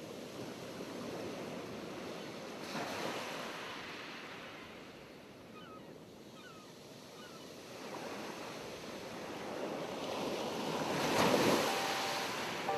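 Ocean surf washing onto a beach, a steady hiss that swells about three seconds in and again, louder, near the end. A few faint high chirps come in the middle.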